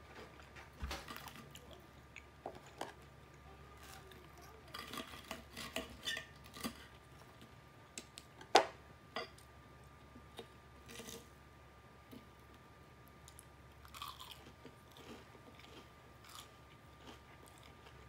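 Close-miked chewing and crunching of extra-crispy fried chicken and fries, in irregular crisp bites. One sharp click stands out about halfway through.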